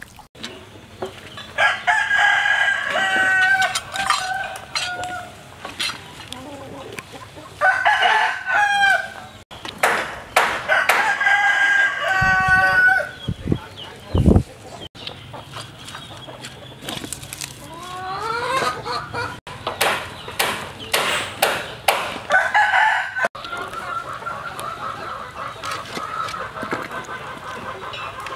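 A rooster crowing several times, long drawn-out crows with hens clucking between them. Scattered sharp clinks of a metal ladle against the soup pot, and a couple of dull low thumps near the middle.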